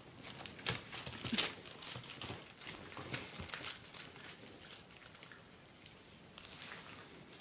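A puppy chewing and rustling a Luna Bar snack-bar wrapper: a run of sharp crinkles and crackles that dies down about halfway through.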